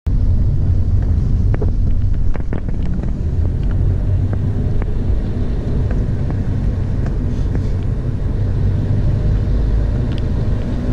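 Steady low rumble of travel along a road, road and wind noise, with scattered light clicks.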